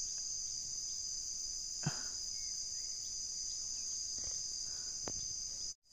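Steady, high-pitched chorus of insects buzzing without a break, with a couple of faint knocks from handling. The whole sound cuts out for an instant near the end.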